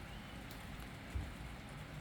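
Steady hiss of rain with a low rumble underneath, and one short low thump about a second in.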